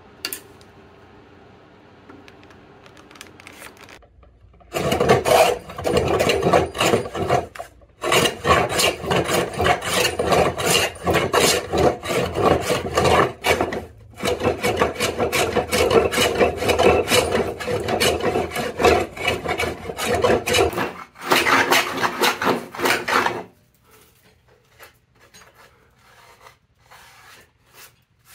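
Metal rabbet plane cutting along a board's edge in quick, repeated strokes, shaving wood off to form a rebate. It starts after a few quiet seconds, pauses briefly two or three times, and goes faint near the end.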